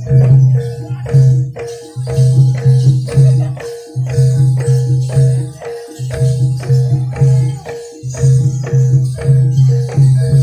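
Jaranan dance accompaniment played by a live gamelan-style ensemble of struck metal instruments and drums. The beat is fast and even, and a deep low tone swells and breaks off about every two seconds.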